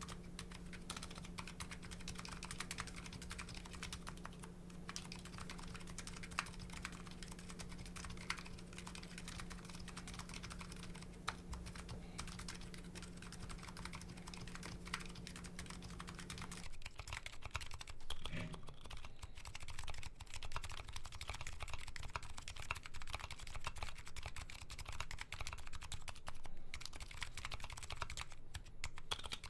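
Continuous typing on a Nuxros Kraze custom keyboard fitted with MetaKeebs MetaPulse electro-capacitive switches, a fast, steady stream of keystroke clacks. About two-thirds of the way through, the recording changes and a low steady hum beneath the typing drops out.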